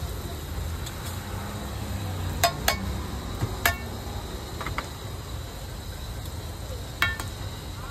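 Metal cooking utensils clinking against a pan on a street-food stall's stove: several sharp clinks with a short ring, the loudest about two and a half, three and a half and seven seconds in, over a steady low rumble.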